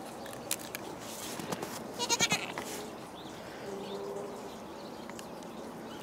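A goat bleats once about two seconds in: a short, quavering call. A fainter low call follows a moment later.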